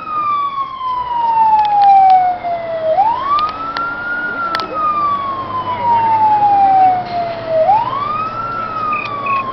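Fire engine siren wailing on an emergency run: each cycle climbs quickly in pitch, then slides slowly down, repeating about every four and a half seconds. A few sharp clicks sound over it.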